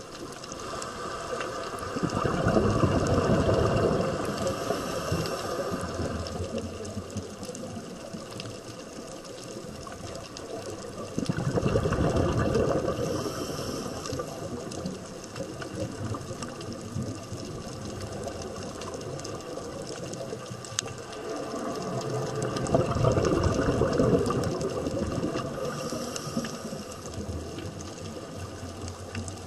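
Underwater sound from a scuba diver's regulator: exhaled bubbles rushing out three times, about ten seconds apart, over a steady underwater hiss with faint crackling.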